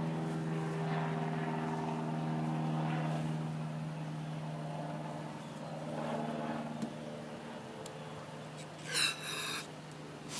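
Small single-cylinder engine of a 5 hp Murray push mower running steadily on shots of starting fluid, growing quieter over the second half, with a brief hiss about nine seconds in. The owner takes its need for starting fluid as a sign of contaminated fuel or blocked carburetor jets.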